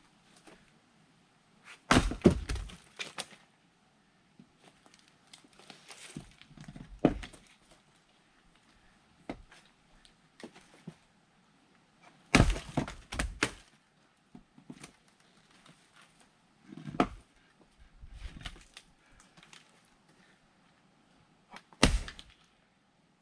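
Firewood being split with an axe: loud strikes with wood cracking apart about 2, 12 and 22 seconds in, each followed by a short clatter of split pieces, and softer knocks of logs being handled and set up between them.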